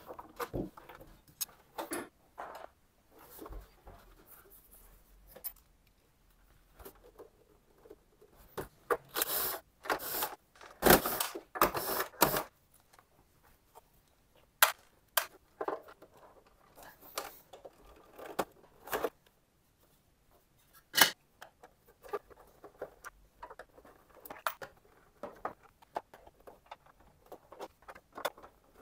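Hand teardown of a plastic air-purifier housing: screws being undone with a screwdriver and plastic panels handled and set down on a bench, giving scattered clicks, knocks and scrapes. A few longer rattling bursts come about a third of the way in.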